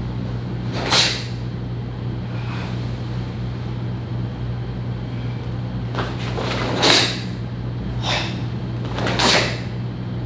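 Karate gi fabric snapping sharply as strikes and blocks are thrown during a kata, about four quick swishes, the loudest about seven seconds in, over a steady low hum.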